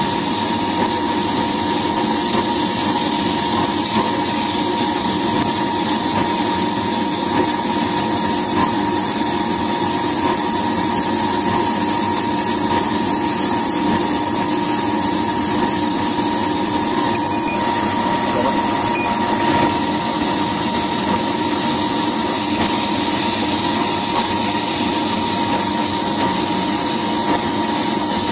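Laser cutting machine running while its head cuts lettering into leather: a steady, even machine noise with a constant whine, and no breaks or knocks.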